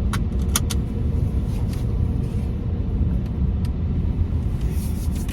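A car driving along, with a steady low road and engine rumble and a few faint clicks.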